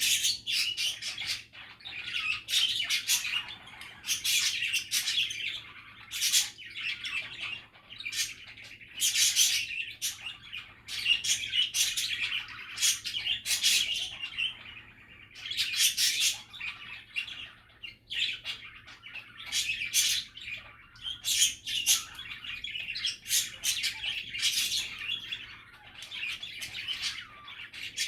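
Budgies chattering without a break: a busy warbling with frequent short, sharp chirps and an occasional squawk.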